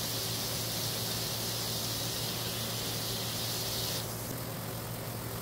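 Garden hose spraying water onto wet paving stones, a steady hiss that stops about four seconds in, over a steady low hum.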